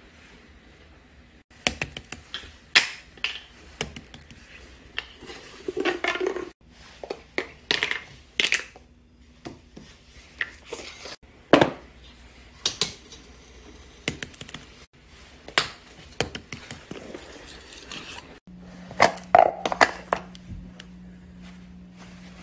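Irregular sharp clicks, taps and knocks of small hard objects being handled, with a steady low hum joining near the end.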